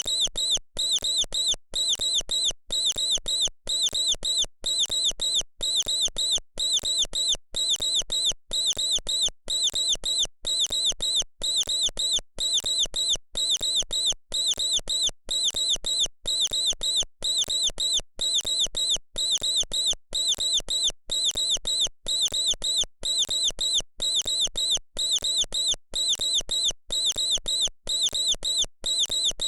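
Mouse squeaking: rapid high-pitched squeaks in short runs of a few at a time, repeating evenly about one and a half times a second without letting up.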